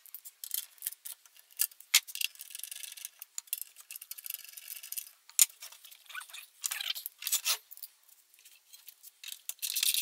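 Tools and metal parts clicking and clinking irregularly, with scraping as a small gas engine is shifted about on a wooden workbench while its fuel tank is being loosened.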